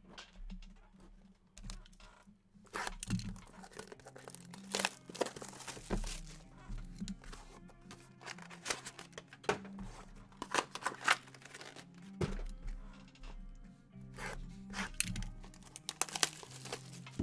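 Plastic wrappers on sports-card boxes and packs being torn open and crinkled by hand in a string of quick sharp rips, over background music.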